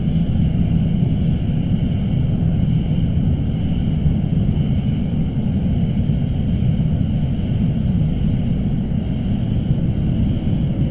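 Suspense ambience sound effect: a steady, dark, low rumbling drone with a faint high hiss above it, unbroken throughout.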